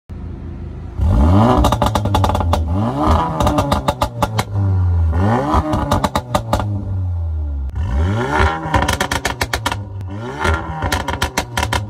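Volkswagen Golf R Mk7.5's turbocharged 2.0-litre four-cylinder idling briefly, then revved five times, each quick rise and fall in revs followed by a rapid volley of exhaust pops and crackles on the overrun. The pops come from the APR Stage 2 software's pops-and-bangs setting on low, through an Armytrix valved cat-back exhaust and APR downpipe, first with the exhaust valves closed, then open.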